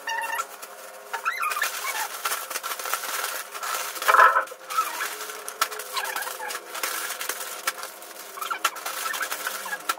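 Plastic snack packets crinkling and rustling as they are picked up and handled, with a bird calling now and then in the background, loudest about four seconds in.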